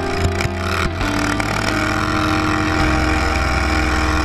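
Racing lawn tractor engine running steadily at speed, its pitch shifting a few times.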